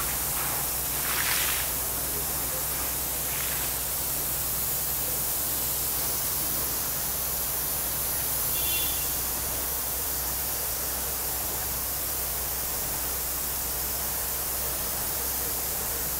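Borewell being air-lift flushed: a steady rushing hiss of compressed air and muddy water gushing up out of the casing pipe around the air hose, over a steady low drone from the air compressor.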